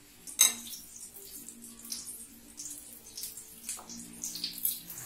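Butter and oil sizzling and spitting in a grill pan, heard as scattered crackles, with wet handling of marinated chicken being pushed onto wooden skewers and one sharp click about half a second in.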